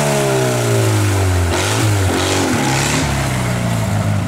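Small tractor engine running as it drives off over rough ground. Its pitch falls over the first second and a half, wavers briefly, then holds steady.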